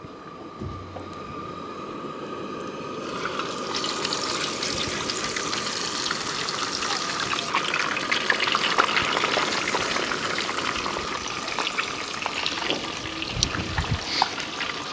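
Floured whole rockfish shallow-frying in hot oil in a skillet, sizzling and crackling. The sizzle builds up over the first few seconds as the fish goes into the pan, then holds steady.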